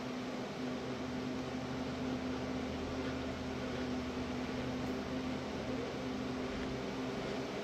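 Steady mechanical hum with a constant low tone and hiss.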